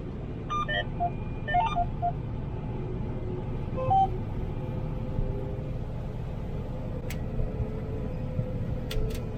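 Steady engine rumble heard from inside a farm vehicle's cab, with a few short electronic beeps in the first couple of seconds and again about four seconds in, and a few sharp clicks near the end.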